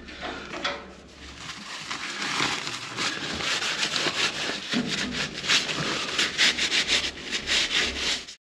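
A cloth and then a wet wipe rubbed briskly back and forth over a freshly soldered copper pipe joint at a radiator valve, cleaning it down. The rubbing grows louder, in quick strokes, about two and a half seconds in, and stops abruptly near the end.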